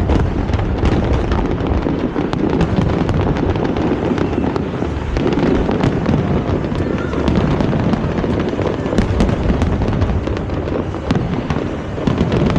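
Aerial fireworks going off in a dense, continuous barrage: many overlapping bangs and crackles in quick succession.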